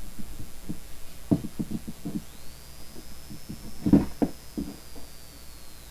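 Handling sounds as cotton cord is threaded and tied onto a steel-and-leather ashiko on a wooden table: scattered low knocks and bumps of the metal piece against the wood. The loudest knock comes about four seconds in.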